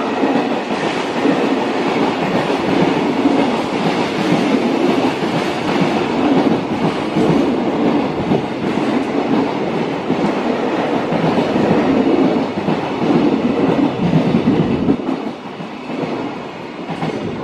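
Freight train of loaded container wagons rolling through a station at speed: a steady rumble with rhythmic clatter from the wagon wheels. It drops away about fifteen seconds in as the last wagon passes.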